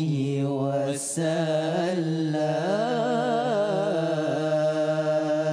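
Male vocal group singing a selawat a cappella. A lead voice sings a wavering, ornamented melody over a long low note held by the other voices, with a brief hiss about a second in.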